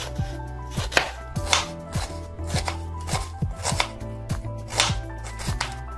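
Kitchen knife slicing an onion on a cutting board: a crisp cut ending in a tap on the board, several times, about once a second.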